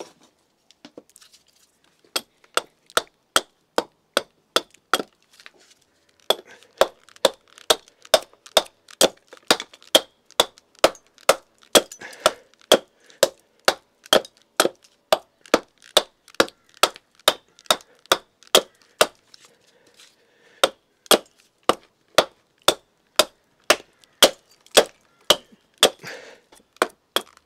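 Hand axe, gripped up near its head, chipping at a sycamore blank in short strokes: a steady run of sharp wooden chops at about two to three a second, after a brief pause near the start.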